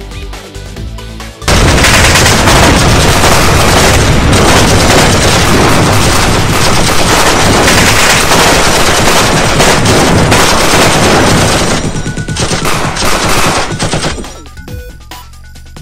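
Gunfire sound effects for a staged shootout: dense, continuous rapid fire like machine-gun fire, starting abruptly about a second and a half in over electronic background music. Near the end it breaks into scattered bursts, then stops.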